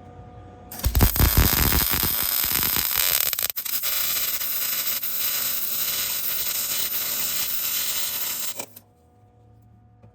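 Electric arc on steel crackling steadily for about eight seconds. It starts abruptly and sputters unevenly for the first second or so, then cuts off suddenly near the end.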